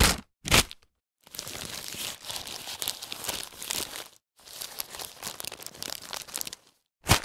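Paper bag being handled: two short, sharp rustles, then about three seconds of continuous crinkling, a brief break, two more seconds of crinkling, and another sharp rustle near the end.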